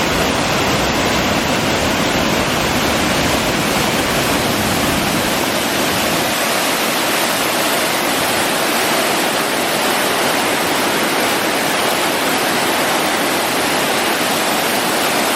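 Martin Falls, a waterfall cascade, giving a loud, steady rush of falling water. A low rumble underneath drops away about six seconds in.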